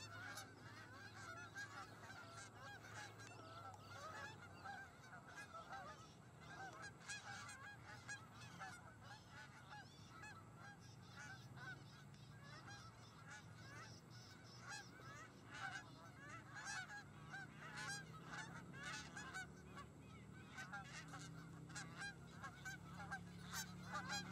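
Flock of Canada geese honking, many faint overlapping calls without a break, a little louder near the end as birds come in to land.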